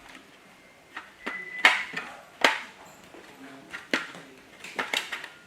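Hard plastic clicks and knocks from a toy gun being handled as its magazine is pushed back into place, with a short high tone a little over a second in.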